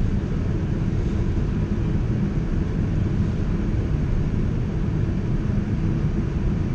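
Steady low rumble of a Boeing 787-9 airliner's engines and rushing air, heard from inside the passenger cabin at a window seat during the approach.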